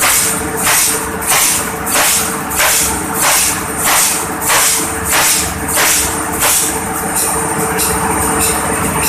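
800 hp marine main diesel engine running under test, with a steady low rumble and a rhythmic hissing puff about one and a half times a second that evens out into a steadier sound after about six and a half seconds. The run is meant to blow out leftover combustion residue.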